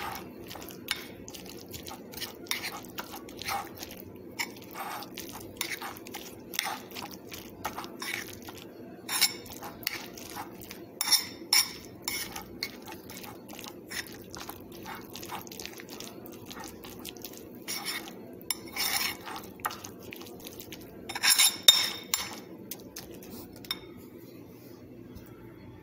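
Metal cutlery clinking and scraping against a ceramic bowl in irregular short clicks, with louder clusters of clinks at a few points, over a steady low hum.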